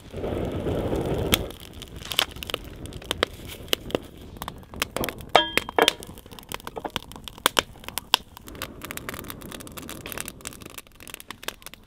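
Wood fire crackling and popping irregularly in a rocket stove, after a brief low rushing noise in the first second and a half.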